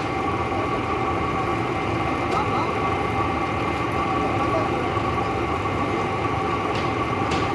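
Wood veneer peeling machine running steadily: an even mechanical drone carrying a few constant tones, with a few faint ticks.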